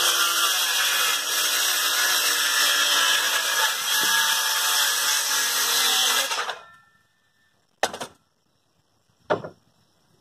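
Handheld power saw cutting through a scrap wooden board, its motor running steadily and then winding down and stopping about six and a half seconds in. Then two sharp wooden knocks about a second and a half apart as boards are set down.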